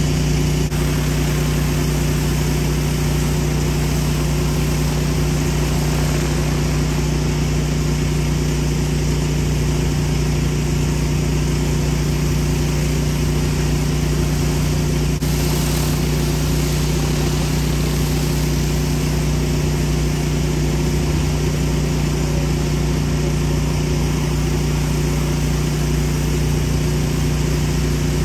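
Pressure washer engine running steadily at a constant pitch, with an even hiss over it.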